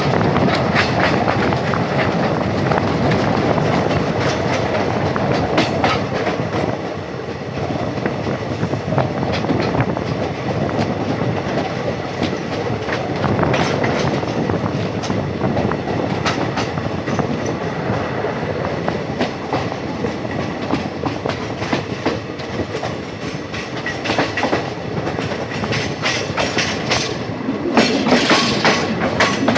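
Indian Railways train running on the track, a steady rumble with the clickety-clack of wheels passing over rail joints, and a louder run of clatter near the end.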